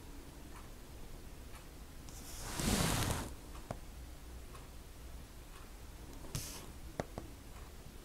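Small brush dabbing and tapping on canvas in faint light ticks and clicks, with a louder half-second rush of noise about two and a half seconds in.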